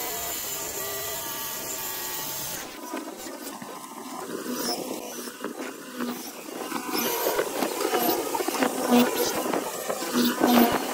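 Hollow-chisel mortiser cutting mortises in a wooden door stile. The motor runs steadily at first, then from about three seconds in the square chisel plunges into the wood again and again, with irregular sharp knocks and cracks that grow louder toward the end.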